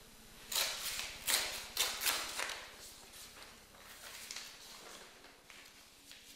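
Books and paper being handled and shifted: a quick run of rustling, scuffing bursts in the first couple of seconds, then softer, scattered ones.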